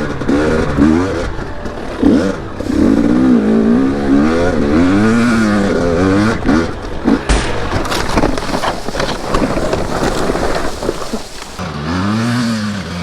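KTM 250 two-stroke dirt bike engine revving hard under load, its pitch sweeping up and down again and again. About seven seconds in there is a sharp knock, then a few seconds of clattering and scraping, and the engine revs up again near the end.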